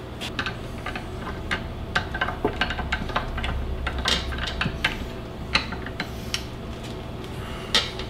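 Scattered sharp metal clicks and clinks as a wood lathe's chuck is worked with a chuck key and the bowl is taken off and remounted, over a steady low hum.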